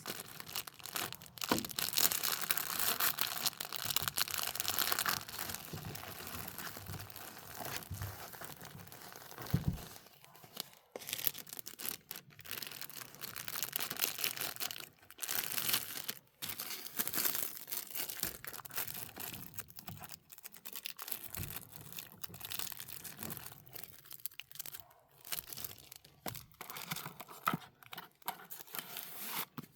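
Plastic packaging crinkling and rustling as it is handled, in uneven spells with short pauses.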